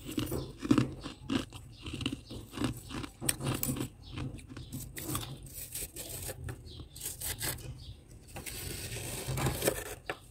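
Metal spoon scraping and scooping soft freezer frost: a run of short, irregular crunchy rasps, then one longer continuous scrape near the end.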